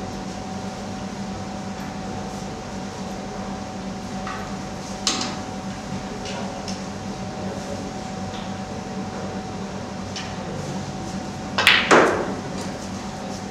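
Snooker balls clacking: a single sharp click about five seconds in, then near the end two sharp clacks about a third of a second apart, the second louder with a short ring, as the cue strikes the cue ball and it hits the object ball. A steady low hum runs underneath.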